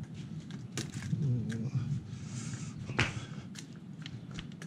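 Close handling noise from hands working a sticker and measuring tape against the car's door frame: a few sharp clicks and taps, the loudest about three seconds in, with a short wavering pitched sound a little after one second.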